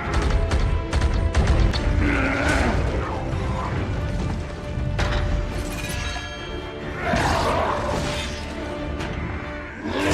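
Film soundtrack: dramatic score with metallic clanks, crashes and booms, a sequence of sharp impacts over held music tones.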